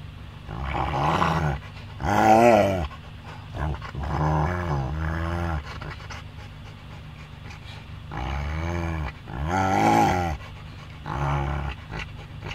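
Rottweiler 'talking': a run of about six drawn-out vocal calls that rise and fall in pitch, separated by short pauses. The owner takes them as the dog telling him she likes him.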